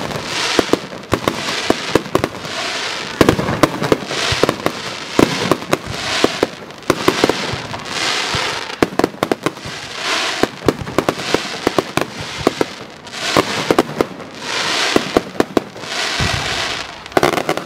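Fireworks display firing a continuous barrage: dense sharp bangs and crackling in quick clusters, with hissing swells between them about once a second.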